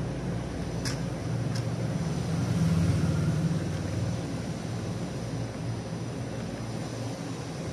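A steady low mechanical hum in the background that swells a little around three seconds in, with two small sharp plastic clicks in the first two seconds as the plastic mobile holder is handled.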